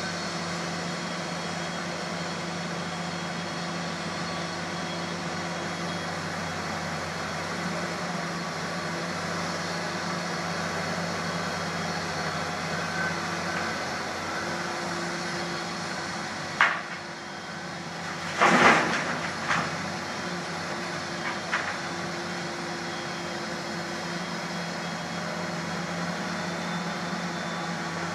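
Tracked hydraulic excavator's diesel engine running steadily as it works. A little past halfway there is a sharp bang, then about two seconds later a louder, longer crash with a knock right after and a couple of small knocks a few seconds on.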